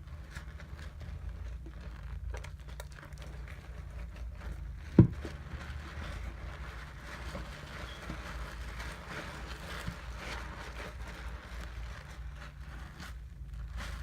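Soap lather being worked by hand: soft wet crackling and squishing of the suds. There is a single sharp knock about five seconds in.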